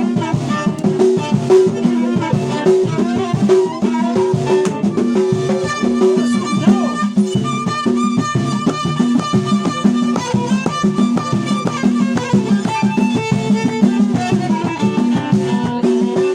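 Traditional Moroccan music played live without added effects: an instrumental passage of short repeated melodic notes over a steady, even percussion rhythm, with no singing.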